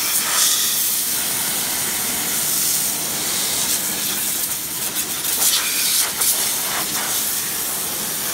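High-pressure water jet from a power sprayer of the kind used for spraying mango trees, hissing steadily as it blasts chicken droppings off a slatted bamboo floor.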